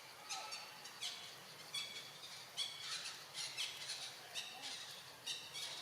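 A series of short, sharp, high-pitched squeaky animal calls, a dozen or so coming at uneven intervals, some dipping in pitch, fairly faint.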